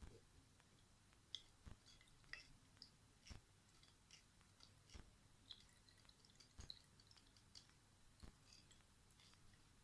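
Near silence: room tone with faint scattered small clicks and soft low knocks about every one and a half seconds.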